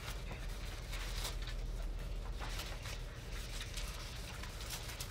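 Quiet background of a conference-call audio line: a steady low hum and faint hiss, with a few faint rustles and clicks.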